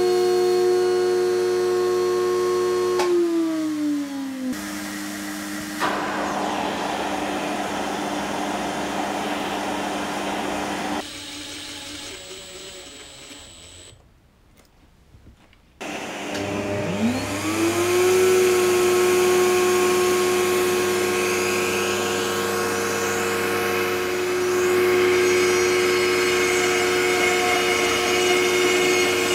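Router in a router table running at full speed, then spinning down about three seconds in. After a noisy stretch and a brief near-silence, it spins back up with a rising whine and runs steadily while a board is fed past the bit along the fence.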